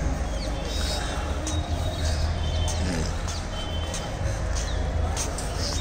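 Small birds chirping in short, scattered calls over a steady low rumble on the microphone.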